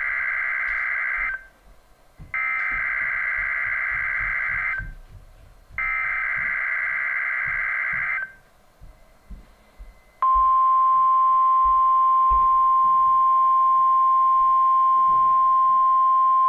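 NOAA Weather Radio Emergency Alert System weekly test signals on a weather radio: three SAME digital header bursts, each about two and a half seconds with a second's gap, the first already under way. About ten seconds in, the steady 1050 Hz weather alert tone starts and holds.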